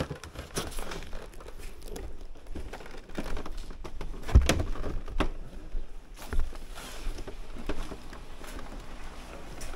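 Scattered knocks, clicks and rustling of things being handled and moved about, with a louder low thump about four and a half seconds in.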